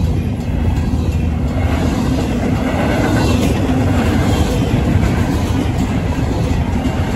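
Union Pacific freight train's double-stack intermodal well cars rolling past over a road crossing: a steady low rumble of steel wheels on rail.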